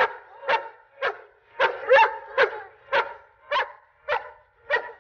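A German shepherd barking steadily, about two sharp barks a second, as a protective warning at an approaching stranger.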